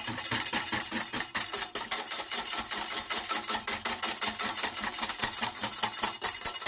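Wire balloon whisk beating a hollandaise sauce in a small stainless steel saucepan: a rapid, even clicking of the wires against the pan, many strokes a second.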